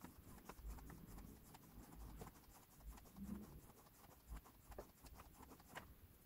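Faint scraping strokes and small ticks of a knife blade drawn along a belt dressed with polishing compound: the blade's edge being stropped.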